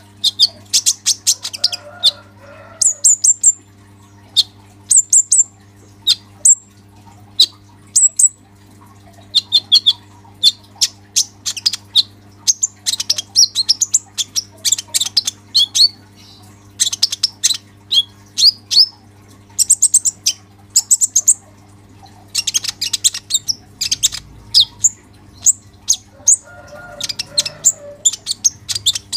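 Caged male kolibri ninja sunbird singing energetically: a fast, unbroken stream of high, sharp chirps and trills in rapid bursts, with only short pauses between phrases.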